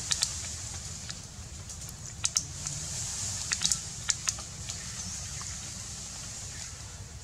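Scattered sharp clicks and crackles, a pair at the start and a cluster a couple of seconds in, over a steady high hiss and a low rumble.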